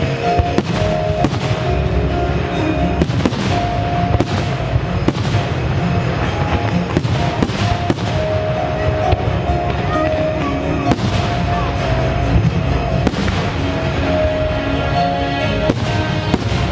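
Fireworks display: aerial shells bursting in an irregular series of sharp bangs, several a second at times, over a music soundtrack.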